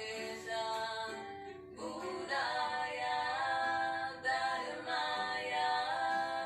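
Background music with a sustained singing voice holding long notes; one phrase ends about two seconds in and the next begins.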